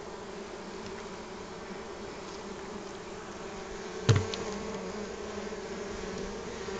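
Honeybees buzzing steadily around an open hive. About four seconds in there is a single sharp knock as the beetle trap is handled against the wooden hive top.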